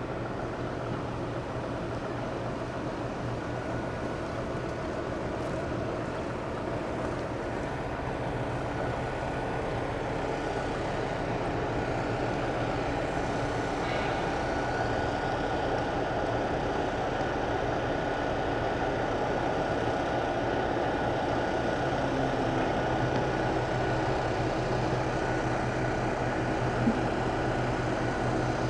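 Steady engine or motor running: a continuous low hum with a faint high whine, growing slightly louder over the stretch, and a brief click near the end.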